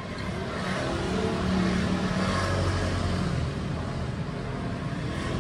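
A 125 cc motorcycle engine running, its level rising over the first second or so and then holding steady.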